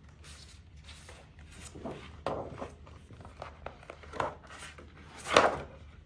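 Clear PET plastic cover rustling and scraping as it is slid off a photobook, with a louder sliding swish about five seconds in.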